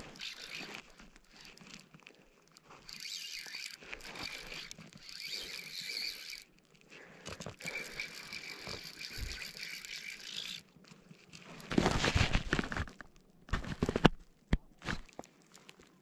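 Fly reel's drag buzzing in spurts as a hooked trout pulls line off against the loosened drag. A few seconds of louder knocks and rustling handling noise come near the end.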